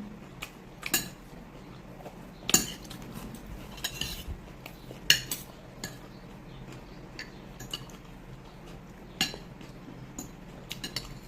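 Spoon and fork clinking and scraping against plates and bowls during a meal, in scattered sharp clicks; the loudest come about two and a half and five seconds in.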